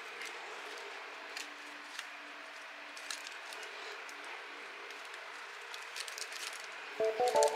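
Faint rustling and scattered light ticks from hands handling flower stems and plastic wrap in a metal bowl, over a faint steady hum. Music comes in near the end.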